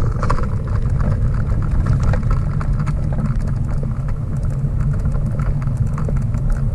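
Steady low rumble and scattered light rattles and knocks from inside a bicycle-towed dog trailer rolling over a paved path, with wind buffeting the camera.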